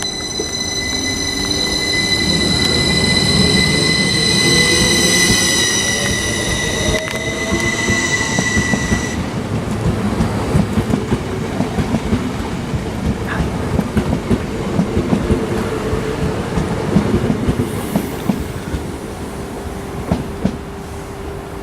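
Class 333 electric multiple unit moving through the station. A high, steady wheel squeal and a motor whine rising in pitch last about nine seconds, then the squeal stops suddenly and a long run of wheel clicks over rail joints follows.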